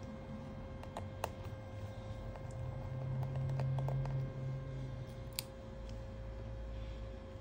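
A few light, scattered clicks and taps as fingers and a small screwdriver handle the opened phone's internals, over a steady low electrical hum.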